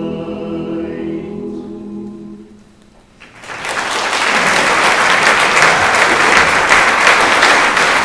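Barbershop chorus holding a sustained a cappella chord that fades away about two and a half seconds in. After a brief pause the audience breaks into loud applause.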